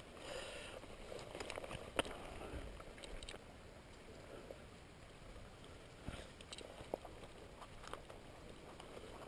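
Faint river water lapping, with a few sharp clicks and knocks; the loudest click comes about two seconds in and several lighter ones come later.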